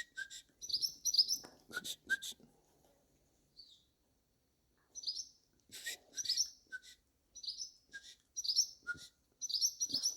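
Barn birds chirping: short, high twittering calls in small clusters of two or three, repeated with gaps between, from the fledgling and its parents calling nearby.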